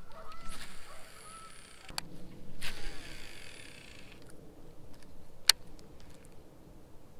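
Baitcasting reel's spool whirring as a cast pays out line, sliding down in pitch and fading after about a second and a half. About 5.5 s in there is one sharp click as the reel handle is turned to engage the spool, the loudest sound.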